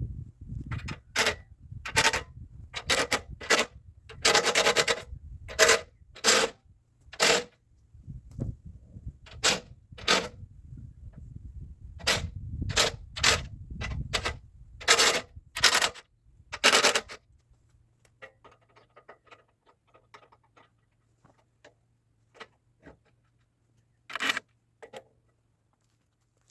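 A series of sharp knocks and scrapes at an uneven pace, roughly one a second, some drawn out, then they stop and only a few faint ticks and two more knocks follow near the end.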